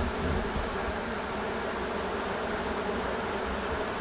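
Honeybees buzzing around an opened hive, a steady, dense hum from many bees; the colony is agitated after being disturbed and smoked.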